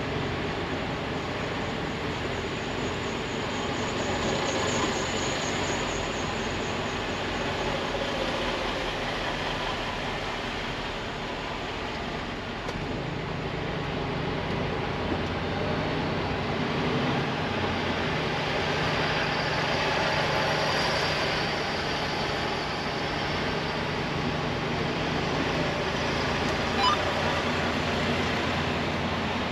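Semi-truck diesel engine running at low speed, heard from inside the cab, under a steady hiss; the engine's low hum strengthens about halfway through. A single sharp click near the end.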